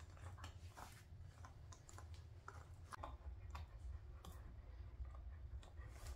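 A puppy gnawing on a hard chew toy that hangs from a rope: faint, irregular clicks and scrapes of teeth on the toy.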